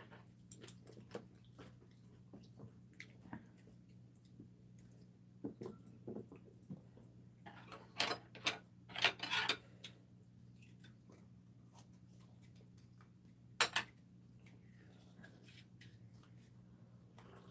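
Quiet eating sounds at a table: scattered light clicks and clinks of chopsticks against bowls and dishes, a few louder short bursts of eating noise about eight to nine seconds in, and one sharp click a little before fourteen seconds. A steady low hum runs underneath.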